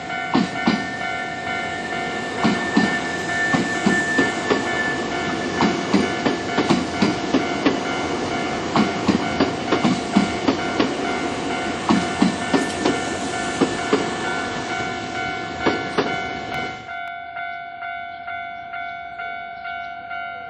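Japanese level-crossing warning bell ringing while an electric train passes over the crossing, its wheels clacking over the rail joints. The train noise ends about 17 seconds in, and the bell rings on alone.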